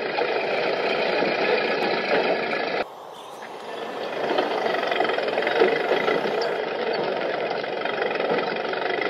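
Dubbed-in sound of old motor car engines running, a steady dense din that breaks off abruptly about three seconds in and fades back up over the next second or two.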